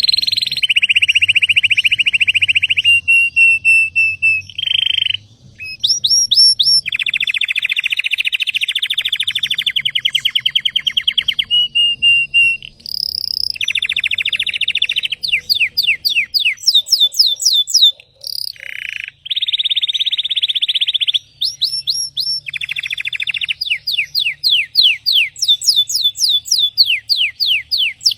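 Belgian (domestic) canary singing a long, varied song: fast trills alternate with quick runs of short, falling whistled notes. It breaks off briefly twice.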